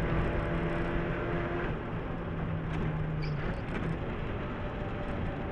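Suzuki Swift GTI rally car's engine heard from inside the cabin, running at steady revs over road and tyre noise. The revs drop slightly a little under two seconds in, and after about three and a half seconds the engine note fades under the road noise as the car eases off.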